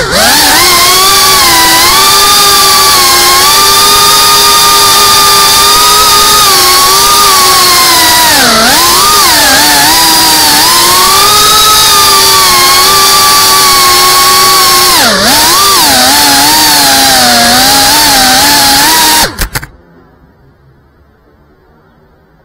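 FPV drone's brushless motors and propellers whining loudly, as heard from the onboard camera, the pitch dipping and climbing again with throttle changes a couple of times. The whine cuts off suddenly near the end, leaving only faint noise.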